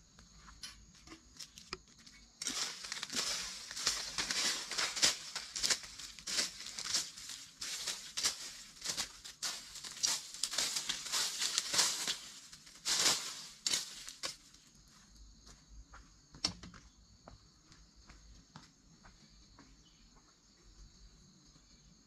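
Dry leaves and twigs crackle and rustle densely for about twelve seconds, starting a couple of seconds in and stopping abruptly, over a steady high insect drone that runs through the quieter parts.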